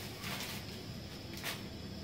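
A thin plastic carrier bag rustling as a hand rummages in it, with a brief crinkle just after the start and another about a second and a half in, over a steady low hum.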